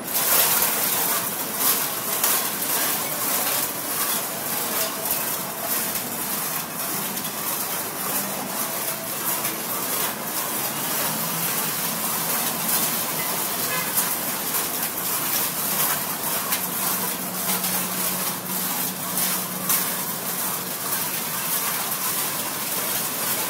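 Many metal can lids rattling and clinking together on a costume as the wearer moves, a dense, steady jangle full of quick clicks.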